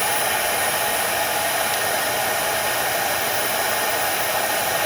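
Dyson V10 cordless stick vacuum running steadily on its medium power mode: a constant rush of air with a thin, steady high-pitched motor whine.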